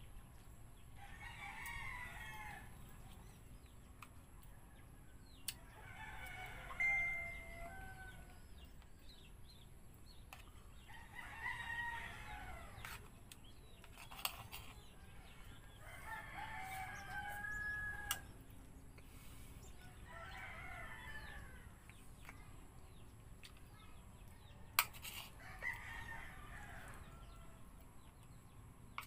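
Rooster crowing over and over, six crows of about two seconds each, one every four to five seconds. A few sharp clicks fall in between.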